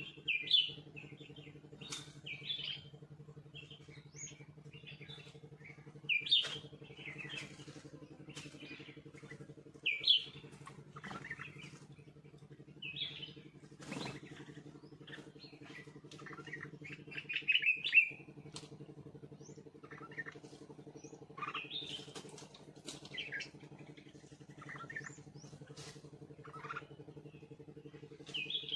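Small wild birds chirping again and again in short, scattered calls, with a few brief sharp rustles among them, over a steady low hum.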